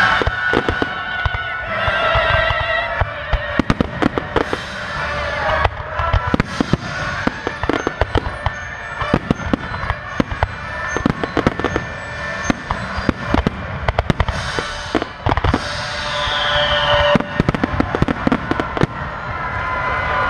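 Aerial firework shells bursting in quick, irregular succession, many sharp bangs and crackles, over loud orchestral music.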